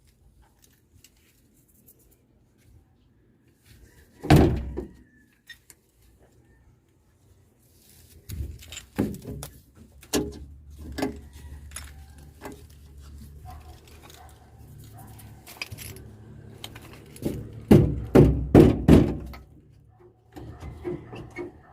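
A loud thunk about four seconds in, then a series of knocks and clatter over a low steady hum, ending in a quick cluster of heavy thunks.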